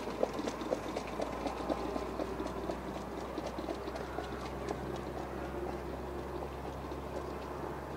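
Hoofbeats of a trotting horse pulling a sulky on a dirt track, a quick regular run of clicks that fades over the first half, over a steady low hum.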